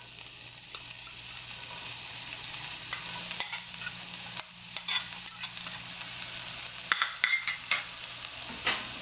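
Chopped onions sizzling in hot olive oil in a cast iron pan, with scattered clicks and scrapes of a utensil stirring them against the pan, most of them in the second half.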